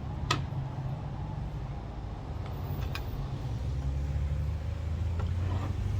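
Steady low rumble of background noise, growing a little louder in the second half, with a sharp click just after the start and a fainter tick midway.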